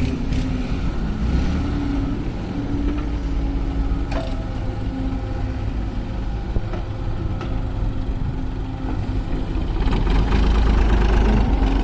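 Excavator's diesel engine running steadily under work, with a few knocks of the machinery; it gets louder about ten seconds in.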